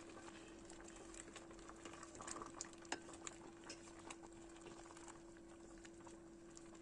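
Faint bubbling and small pops of white mulberry jam simmering on low heat in a stainless steel pot, with a wooden spoon stirring through the syrupy fruit. A steady low hum runs underneath.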